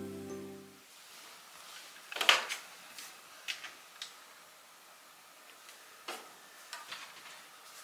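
Under-sink kitchen cabinet doors opened and things inside handled: a clatter a little over two seconds in, then scattered light knocks and clicks.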